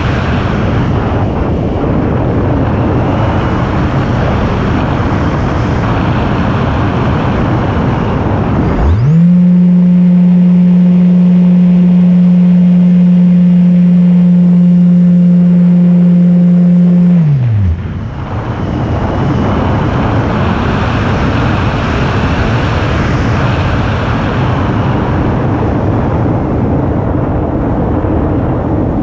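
Radio-controlled FPV aircraft in flight, its motor and propeller running with wind rushing over the onboard camera's microphone. About nine seconds in the rush gives way to a loud steady hum that glides up, holds for some eight seconds, then glides down as the rush returns.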